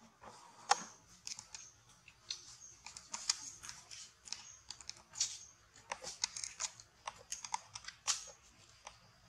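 Irregular small crisp clicks and crackles, several a second, with one sharper click about a second in.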